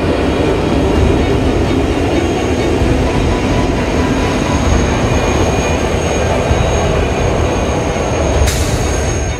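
Train running on the rails, a steady dense rumble with a thin high squeal of the wheels coming in partway through, and a brief hiss near the end.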